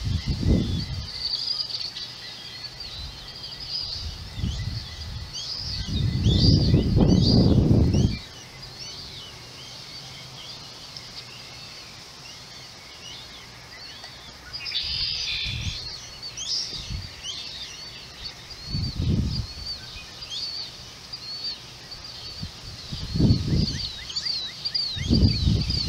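Many birds chirping and twittering in short, high calls, with a denser burst of calls about fifteen seconds in. Low rumbles break in now and then, the loudest lasting about two seconds around six seconds in and more near the end.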